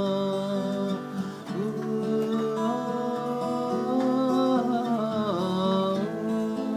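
Music: strummed acoustic guitar under a held melody line that slides slowly in pitch.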